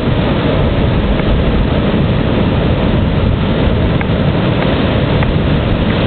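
Wind buffeting the microphone: a loud, steady rushing rumble, heaviest in the low end.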